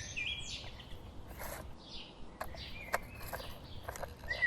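Small birds chirping in short high calls, some sweeping downward, with a few sharp clicks in between.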